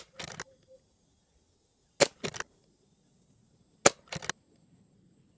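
Three shots from a .22 Brocock Sniper XR Sahara pre-charged pneumatic air rifle, about two seconds apart, each a sharp crack followed by a quick rattle of smaller clicks.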